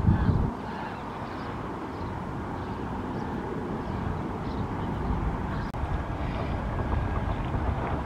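Wind buffeting the microphone: an uneven low rumble, with a stronger gust in the first half second. Faint, short, high bird chirps come through here and there.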